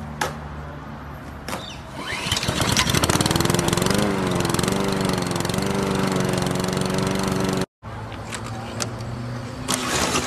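Small petrol lawn mower being pull-started. The recoil starter cord gives a few sharp yanks, then the engine catches about two seconds in and runs with a slightly wavering pitch. The sound cuts off abruptly near the end, and a new round of cord pulls begins.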